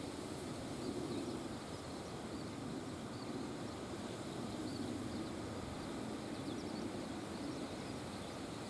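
Strong wind buffeting the microphone, a steady rumbling hiss that swells and eases, with faint short high chirps now and then.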